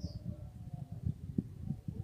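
Wind buffeting the microphone in irregular low gusts, with a brief high chirp right at the start.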